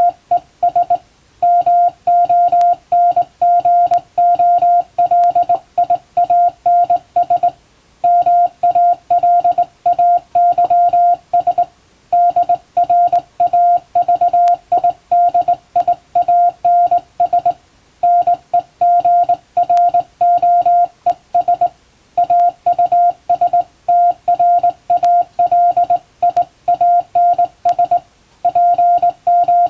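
Morse code sent by hand on a vertical straight telegraph key: a single steady tone beeping on and off in dots and dashes, run together in groups of code with short pauses between them.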